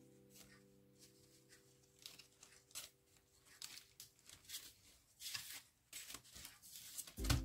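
Sheets of thin chipboard leaf die-cuts rustling and scraping against one another as they are handled and leafed through, in short irregular bursts. A low thump comes near the end as background music starts again.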